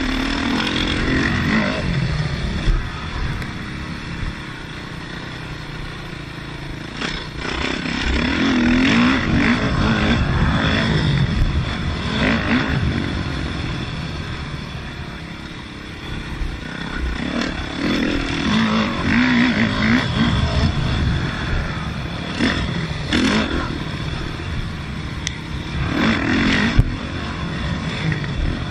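Yamaha YZ450F single-cylinder four-stroke motocross engine revving up and down with the throttle while riding, heard close from a camera mounted on the bike. It pulls hard twice, about a third of the way in and again past halfway, and there are several sharp knocks from the bike.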